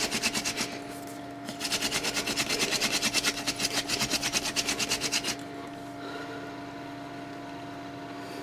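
Hand-drill fire-lighting: a wooden spindle twirled back and forth between the palms, grinding in the hearth-board notch in quick rhythmic scratchy strokes, about six a second. The strokes break off briefly about a second in, start again, and stop a little after five seconds.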